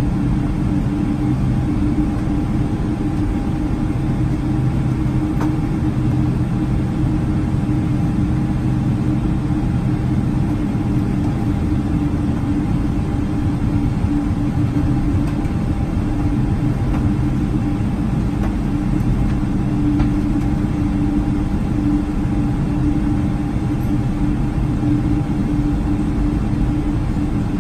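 Cabin noise of a Boeing 777-300 taxiing: its twin jet engines running at taxi power, a steady hum with a couple of even tones over a low rumble.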